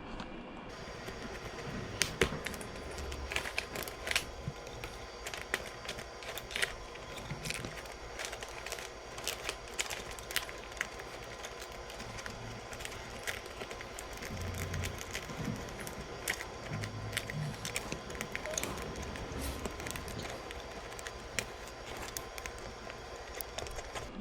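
Irregular clicks, taps and knocks of plastic and metal parts being handled and fitted while a motorcycle fender eliminator kit is installed, over a faint steady hum.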